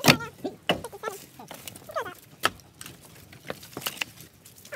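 Sharp knocks of split firewood pieces being handled, the loudest right at the start, with a short vocal sound about two seconds in.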